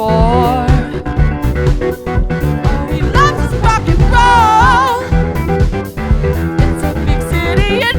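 Band music: a rock song with bass guitar, drum kit and guitar. A wavering lead melody comes in over it near the start, again about three seconds in, and once more near the end.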